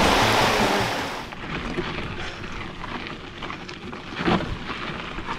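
Rushing creek water, cut off after about a second. Then a hardtail mountain bike is ridden over a rocky dirt trail: tyres on dirt, with scattered clicks and rattles from the bike and one louder knock about four seconds in.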